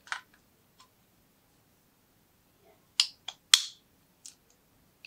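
Sharp plastic clicks from a white plug-in charger being handled: one small click at the start, then a quick cluster of three about three seconds in, the last of them the loudest, and a softer one a moment later.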